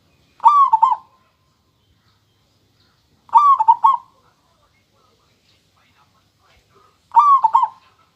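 Zebra dove (perkutut) cooing: three short phrases of a few quick clear notes each, spaced a few seconds apart.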